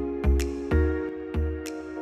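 Background music: gentle instrumental track with sustained chords, a low bass note and a steady beat.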